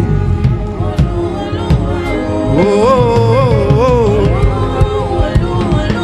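Live gospel praise music from a church band, with bass and percussion keeping a steady beat, and a voice singing a wavering melodic line around the middle.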